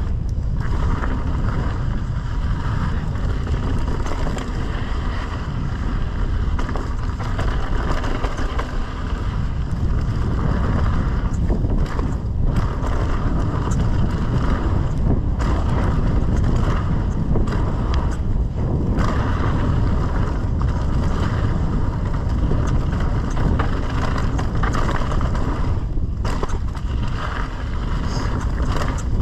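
Mountain bike descending a dirt trail at speed: wind rushing over the camera microphone, with tyres rolling on loose dirt and gravel and the bike rattling over the bumps.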